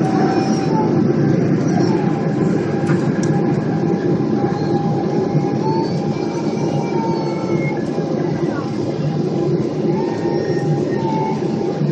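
Boeing 777 jet engines running as heard inside the passenger cabin, a steady deep rush with a thin whine on top.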